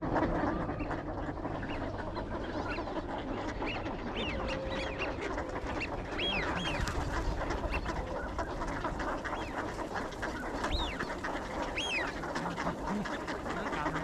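A flock of ducks crowding close and quacking continuously, with a few higher, arching calls standing out now and then.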